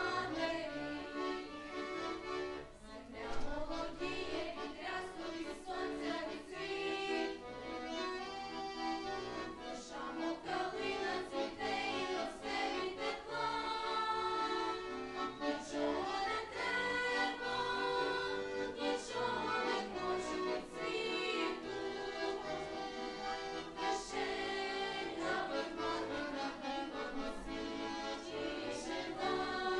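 A group of four girls singing a Ukrainian song together, with instrumental accompaniment.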